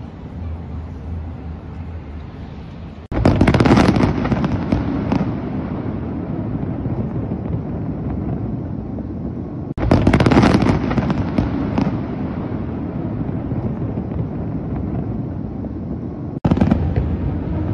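Aerial fireworks going off in three loud volleys, about three, ten and sixteen seconds in. Each starts suddenly with bangs and turns into dense crackling that slowly fades. A low rumble comes before the first volley.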